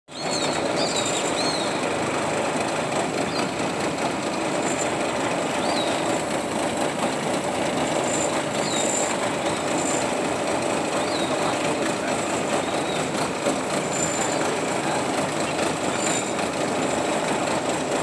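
A steady mechanical drone that holds at one level, with a few short high chirps scattered through it.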